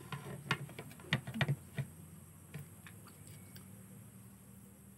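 Crispy ukoy fritter crunching as it is chewed and broken apart: a quick run of sharp crackles in the first two seconds, then a few scattered ones.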